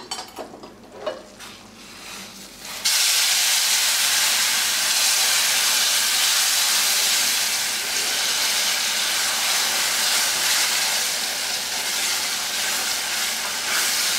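Hot boiled water poured into semolina roasted in hot ghee in a kadai: a sudden, loud sizzling hiss of steam starts about three seconds in and holds steady while it is stirred with a wooden spatula. Before it, a few light metal clicks as the steel pan of water is gripped with tongs.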